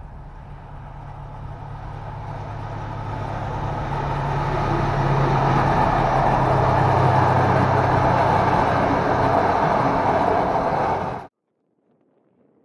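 SU42 diesel-electric locomotive hauling a passenger train past at close range: a steady engine hum that grows louder as it approaches, then the rolling rumble of the train going by. The sound cuts off suddenly near the end.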